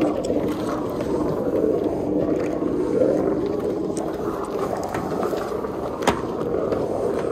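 Car-wash foam brush scrubbing soapy car body panels and glass: a steady swishing and hissing of bristles and foam, swelling and easing as it moves. A sharp knock comes about six seconds in.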